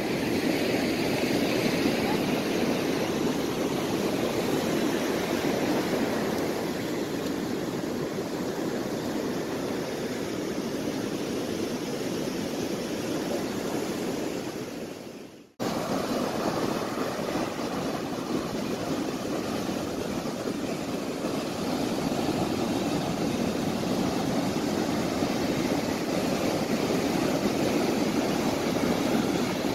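Ocean surf breaking on a sandy beach, a steady rushing roar. About halfway through it fades away and cuts out for a moment, then comes straight back.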